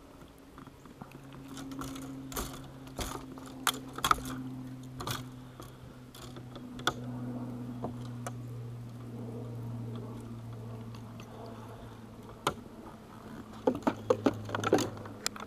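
Scattered clicks and knocks of fishing rods, reels and tackle being handled and stowed in a boat, with a quicker cluster near the end. A steady low motor hum underlies them from about a second in.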